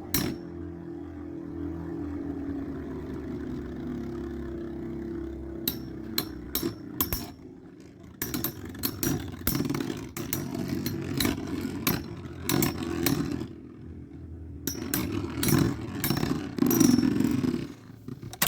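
Two Metal Fight Beyblade tops, Storm Pegasis 105RF and Thermal Pisces T125ES, spinning in a stadium with a steady whir that drops slightly in pitch at first. From about six seconds in they clash repeatedly, giving many sharp clacks and clattering hits.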